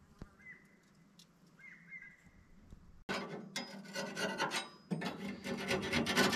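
Rough scraping and rasping in quick repeated strokes, starting abruptly about three seconds in, with a short break near the five-second mark.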